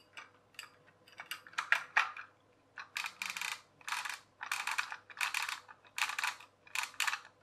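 Clear plastic toy-train gearbox parts being handled and fitted together by hand: a few light plastic clicks, then about six short scraping rattles at an even pace, roughly one every two-thirds of a second.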